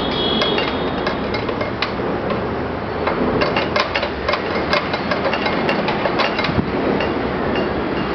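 Steady background noise with a run of sharp, irregular knocks, thickest in the middle few seconds.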